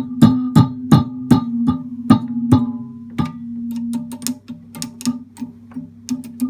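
Valves in a Vox AC15 valve amp being tapped with a chopstick, each tap coming through the amp's speaker as a sharp knock followed by a pitched ringing hum that carries between taps: the sign of a microphonic tube. The knocks and the ringing are strongest in the first three seconds, then lighter, quicker taps follow.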